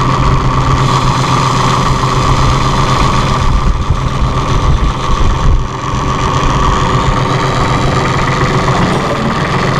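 A New Holland TC30 compact tractor's diesel engine idling steadily while the hydraulic front loader raises its arms and bucket at idle speed.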